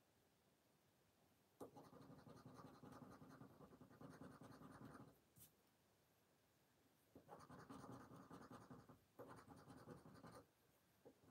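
A poker chip scraping the scratch-off coating on a paper lottery scratch card. It scratches steadily for about three seconds, pauses, then scratches again for about three seconds.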